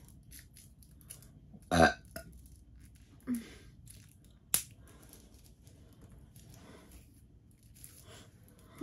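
A person burping once, loud and short, about two seconds in, with a fainter throat sound a second and a half later. A single sharp click follows soon after.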